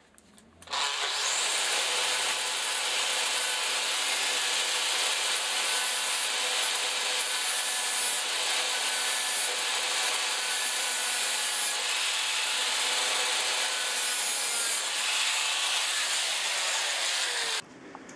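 Angle grinder with a flap disc running steadily as it grinds down two protruding bosses in a table saw's throat-plate recess. It starts about a second in and cuts off near the end.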